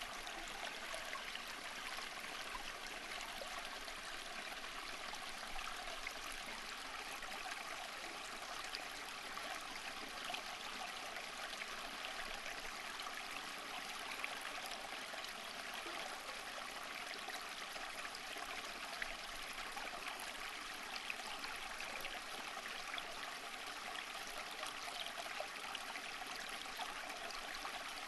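Running water flowing steadily, an even rushing sound with no change in strength.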